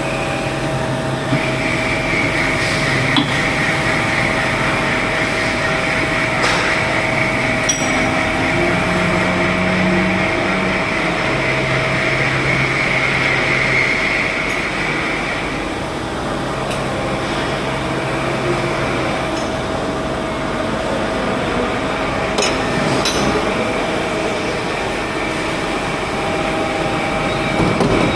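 CNC vertical machining centre running: a steady mechanical noise with a constant hum, a higher whine over roughly the first half that then fades, and a few sharp clicks.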